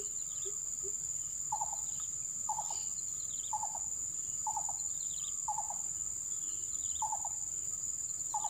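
Insects, crickets by the sound of it, keeping up a steady high shrill drone, with a short chirping call repeating about once a second.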